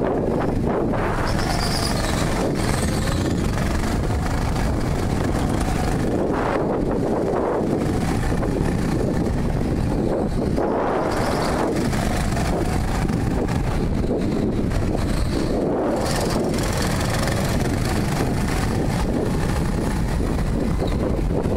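Go-kart lapping a track, heard from a helmet-mounted camera: a steady rumble of wind on the microphone mixed with the kart running, with faint tones rising and falling as it speeds up and slows for corners.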